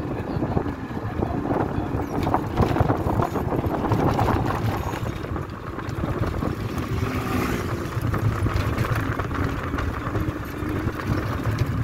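Auto-rickshaw riding along a road: engine and road noise, with wind buffeting the microphone.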